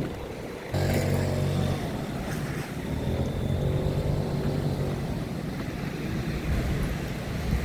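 A motor engine running with a steady hum, coming in suddenly about a second in and fading after a few seconds.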